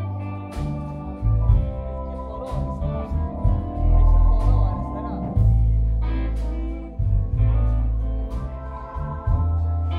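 Live band playing an instrumental introduction: electric guitar and keyboard over held, deep bass notes, with drum and cymbal hits.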